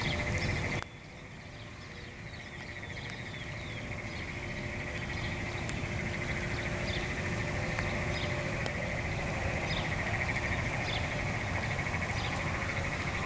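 Rain falling on a pond, with a steady high trilling animal chorus and scattered short bird chirps over it.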